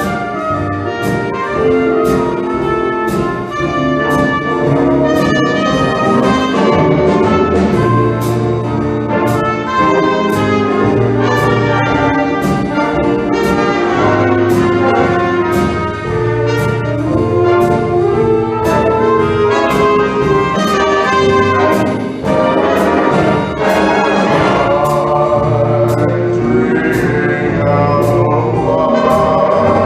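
A wind band with prominent brass (trumpets and trombones) playing a holiday piece, with a cymbal-like tap about once a second keeping the beat.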